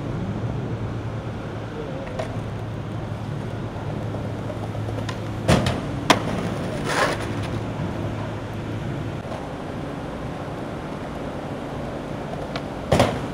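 Skateboard on a stone ledge: sharp clacks of the board about halfway through and again near the end, over steady city traffic hum.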